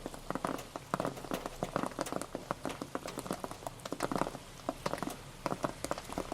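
Rain pattering, with many irregular drops tapping on a surface over a steady hiss.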